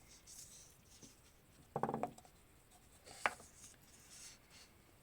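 Faint handling of small timing-chain-tensioner parts: soft rubbing and scraping, a short pitched sound about two seconds in, and one sharp click a little after three seconds.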